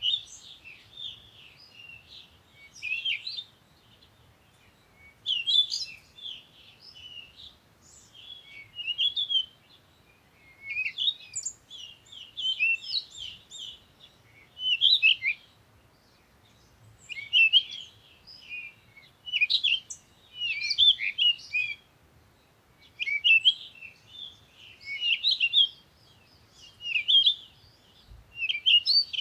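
Small birds chirping and twittering in repeated bursts of quick high notes, a burst every couple of seconds with short quiet gaps between.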